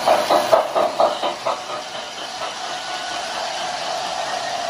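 O-scale model trains running on the layout: a rhythmic beat of about four strokes a second that dies away after a second and a half, then a steady hum with a hiss as the MTH Missouri Pacific SD70ACE diesel rolls toward the camera.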